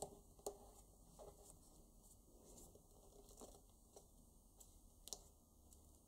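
Faint handling of a folded paper banknote: soft rustles and a few light clicks as the paper is creased and pinched between fingertips, the sharpest about half a second in and about five seconds in.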